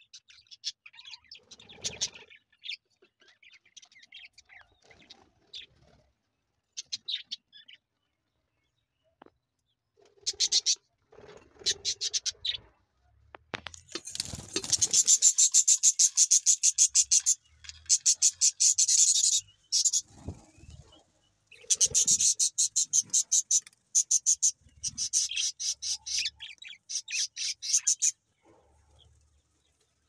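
Budgerigar chicks calling: fast, evenly repeated high chirps in several runs of a few seconds each, sparse at first and loudest from about halfway on, typical of nestlings begging for food.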